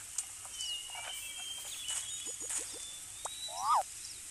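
A mix of animal calls: thin high chirps and whistles throughout, a quick run of short low croaks about two and a half seconds in, and a short, loud call that rises and falls near the end.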